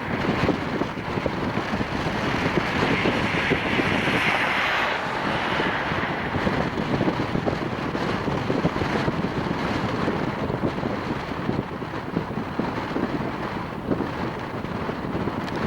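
Strong gusting wind buffeting the microphone, a rough, uneven rumble with rushing noise that brightens for a few seconds early on.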